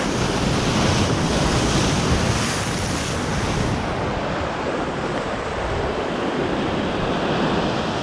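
Ocean swell breaking and washing over a coastal rock ledge, with wind buffeting the microphone. The rush of surf is fullest for the first few seconds, then eases a little.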